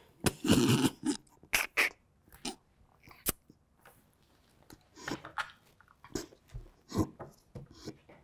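Two women laughing almost silently: short breathy gasps and wheezes of stifled laughter every second or so, with a quiet stretch in the middle. A single sharp click sounds about three seconds in.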